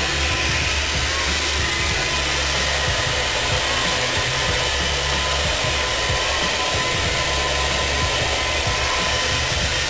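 Handheld hair dryer running steadily on medium speed with warm heat, blowing through hair wound on a round brush: a constant rush of air over a low motor hum.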